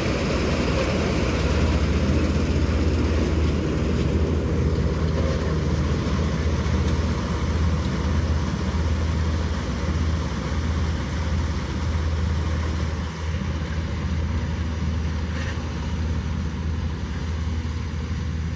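Combine harvester running steadily: a constant low engine drone under a dense mechanical clatter and rush.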